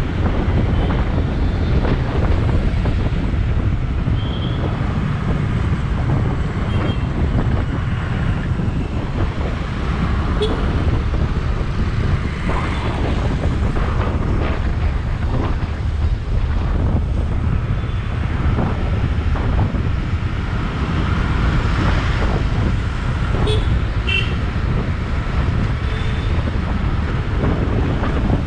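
Road noise from a moving motorbike: wind buffeting the microphone over the steady hum of the engine and surrounding traffic, with a few short horn beeps.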